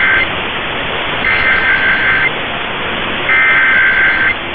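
Emergency Alert System digital data bursts: three buzzy, warbling two-tone bursts about a second long, spaced about a second apart, the first already under way. They sit over steady radio hiss.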